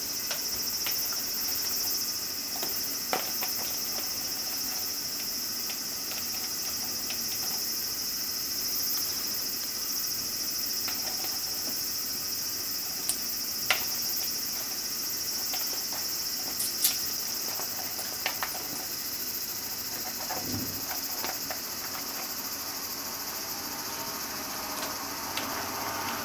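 Eggplant slices dropped one at a time into a pot of cold water with sliced potatoes, giving a few short splashes and clicks over a steady high-pitched hiss.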